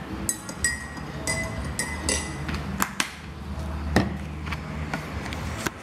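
Crockery and utensils clinking: several short ringing clinks in the first two seconds, then a few sharp clicks, over a low steady hum.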